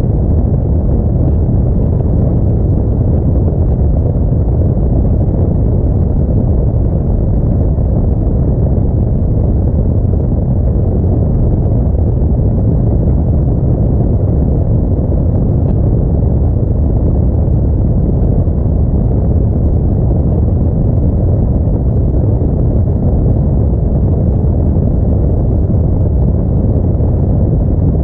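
Steady low rumble of an Audi A4 driving: road, engine and wind noise running evenly without change.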